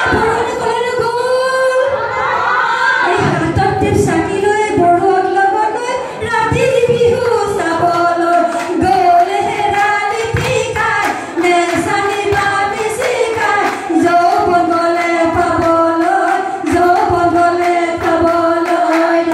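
A group of women singing an Assamese Bihu song together, one voice leading on a microphone.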